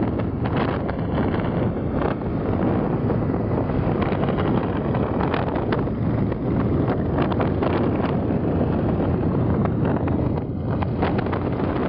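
Wind buffeting a microphone moving at highway speed: a loud, steady rush with the noise of motorcycle engines and tyres on the road beneath it.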